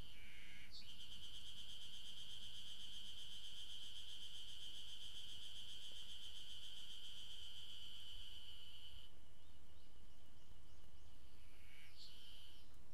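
Ezo spring cicadas (Terpnosia nigricosta) singing. One holds a long, steady, fast-pulsing buzz from about a second in until about nine seconds, then fainter ones carry on, with short separate calls near the start and the end.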